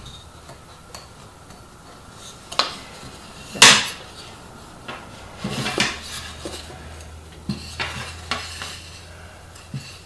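A wire-mesh suet holder and wooden feeder parts being handled and pushed together, giving scattered clicks, knocks and metallic clinks, the loudest a little over a third of the way in.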